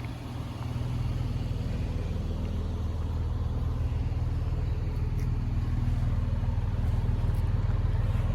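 Holden Commodore VXR's V6 engine idling, a steady low hum that gets a little louder about a second in.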